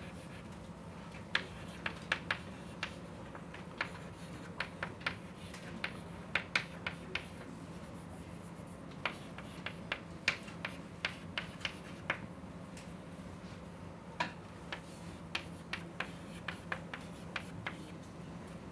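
Chalk writing on a chalkboard: a run of sharp, irregular taps and short scratches, sometimes several a second, over a faint steady low hum.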